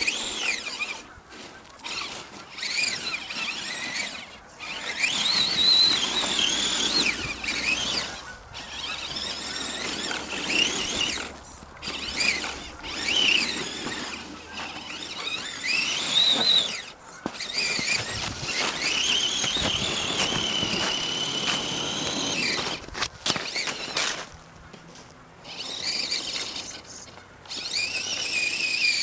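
Radio-controlled truck's electric motor and geartrain whining in repeated bursts of throttle, the high pitch rising and falling as it speeds up and slows down, with short pauses between bursts.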